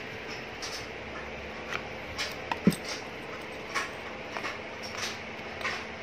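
Light clicks and taps from hands handling an electric winch and its corded remote, with one sharper knock about two and a half seconds in.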